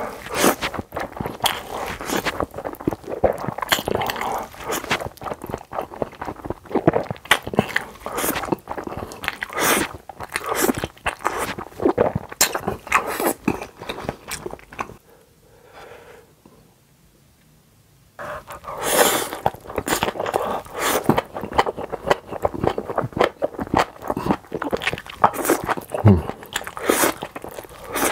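Close-miked mukbang eating: a man slurping big mouthfuls of black bean sauce noodles and chewing them with wet smacks and clicks. The eating sounds drop away briefly about halfway through.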